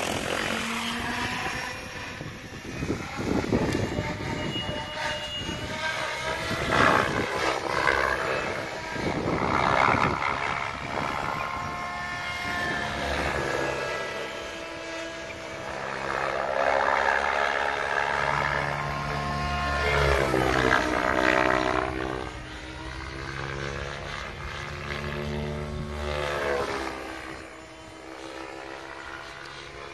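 SAB Goblin 700 Competition electric radio-controlled helicopter flying, its rotor blades and motor making a whine whose pitch rises and falls as it manoeuvres.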